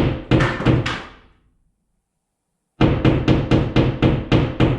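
Hammer tapping a drywall anchor into the wall with quick, even knocks, about three a second. The tapping breaks off about a second in and starts again about a second and a half later.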